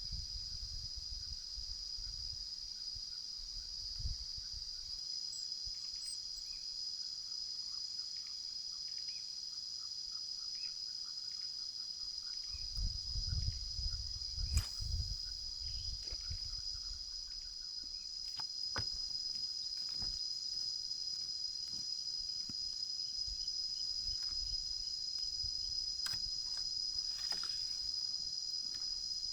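Insects droning in a steady, high-pitched buzz, with a few scattered clicks and a brief low rumble about halfway through.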